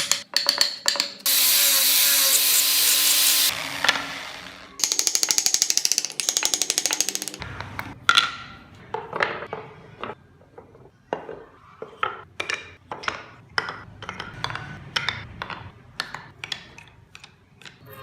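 Woodworking tools on wood. About 2 s of steady rasping noise comes first, then a few seconds of rapid, even clicking. After that comes a string of separate short scrapes or taps, about two a second.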